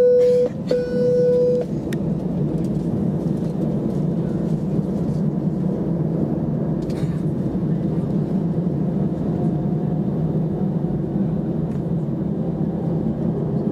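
Steady cabin noise of an Airbus A320 taxiing, its jet engines running at low thrust, heard from inside the cabin. At the start a steady tone sounds twice, about a second each.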